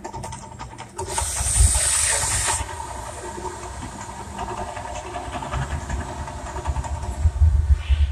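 Gas fire jets of the Mirage volcano attraction erupting with a loud hiss, strongest in a burst from about one to two and a half seconds in, followed by an uneven low rumble that swells near the end.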